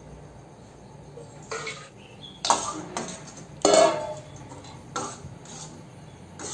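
Steel ladle stirring a thick curry in a steel pot, scraping and knocking against the pot, with two loud clanks of metal on metal in the middle and softer knocks after.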